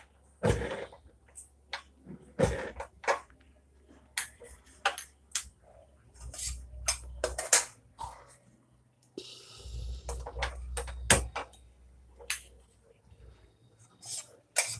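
Irregular sharp pops and clicks, about one or two a second, from whole spices (bay leaf, dried red chilli, cardamom, cinnamon, clove) crackling as they fry in hot oil in a stainless steel kadai. A short hiss comes a little past the middle, and a low rumble rises and falls in places.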